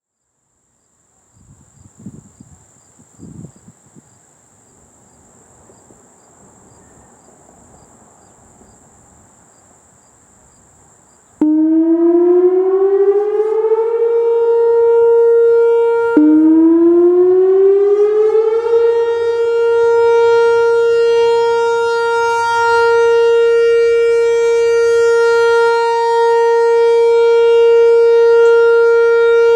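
Faint background for about eleven seconds, then a Whelen Vortex R4 electronic outdoor warning siren starts sounding its weekly test alert. Its tone rises in pitch over a couple of seconds and settles, drops back down abruptly about five seconds later and climbs again, then holds a steady tone.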